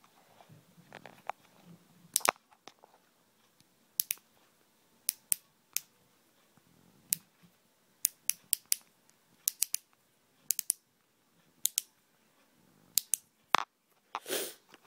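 Sharp clicks of a click-dial lip gloss being turned to push the gloss up to the applicator, coming in small irregular groups of one to three with pauses between. A brief rustle near the end.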